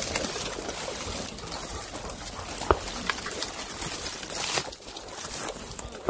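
Dry brush scraping and rustling against clothing and the camera as someone pushes through thick scrub, with scattered snaps and footsteps crunching on gravel.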